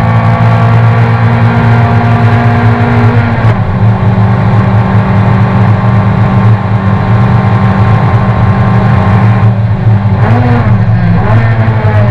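Race car's engine at high revs, heard from inside the cabin, running steadily under power. It changes pitch about three and a half seconds in, a gear change, and the revs rise and fall near the end.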